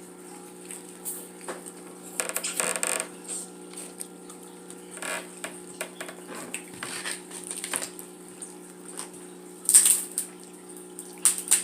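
Close-up eating of a seafood boil: shells being cracked and picked, chewing, and scattered clicks and rustles of the food containers, with two sharper snaps near the end, over a steady low hum.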